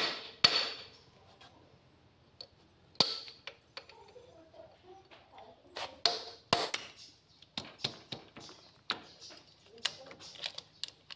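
Steel hammer striking a cold chisel against a bolt head on a tractor's front axle: a few spaced, sharp metal blows, the strongest about three seconds and six and a half seconds in, with lighter metal clinks between. The chisel is used because rust has rounded the bolt head so a spanner or socket can't grip it.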